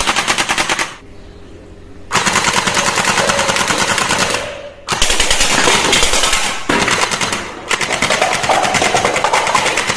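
Toy machine gun firing in rapid automatic bursts, with a few short breaks between runs of fire.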